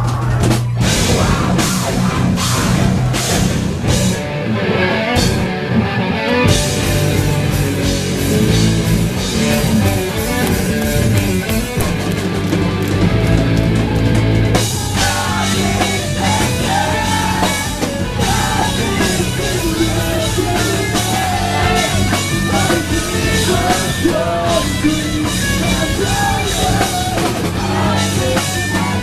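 A post-hardcore band playing live and loud: drum kit, guitars and bass in a heavy rock song. The cymbals thin out a few seconds in, and the full band with cymbals comes back in about halfway through.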